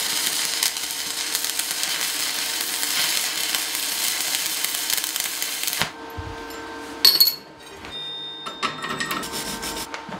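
Stick-welding arc at about 80 amps crackling steadily for about six seconds, with a steady hum under it, then breaking off suddenly. It is a counter-weld bead run along a flat-steel T-angle to pull the weld distortion straight. After it come a sharp metallic clink and a few light clicks.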